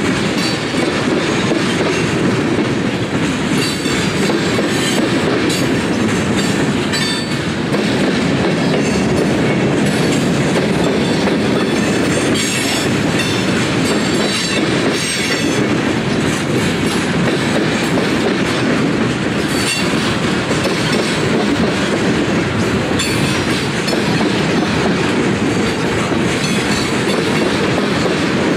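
Freight train of tank cars rolling past at close range: a steady rumble of steel wheels on rail, with irregular sharper clicks and clatter from the wheels and cars running over the track.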